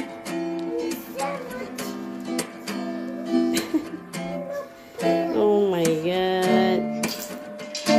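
Background music with strummed acoustic guitar, and a voice sliding down and back up in pitch about five seconds in.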